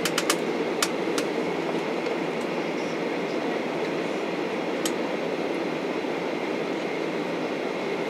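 Cabin noise inside a Boeing 737-800 taxiing in heavy rain: the steady rumble of its CFM56 engines at taxi power and the cabin air, with a faint high steady whine. A few sharp clicks come in the first second or so, and one more about five seconds in.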